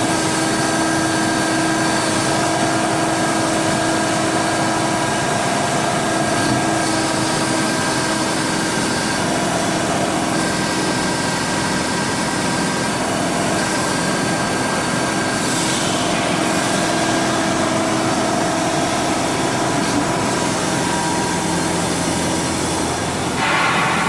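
Electric motor and hydraulic pump of a CNC press brake's hydraulic unit running steadily: a constant mechanical hum with a steady whine over it. A brief louder rush of noise comes near the end.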